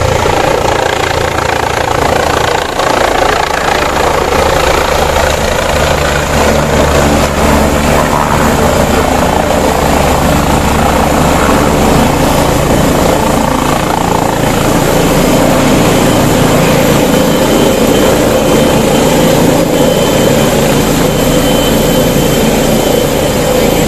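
Police helicopter landing, its rotor and engine running loudly and steadily as it descends, hovers low and settles onto the ground.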